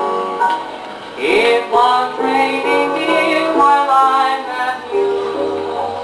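Victor Orthophonic Credenza Victrola playing a 78 rpm record: old-time music with sustained chords and a sliding note about a second in.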